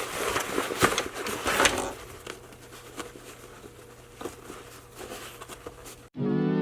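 Rustling and light clicks of a nylon backpack being handled, louder for the first two seconds and then fainter. About six seconds in it cuts abruptly to steady synthesizer music.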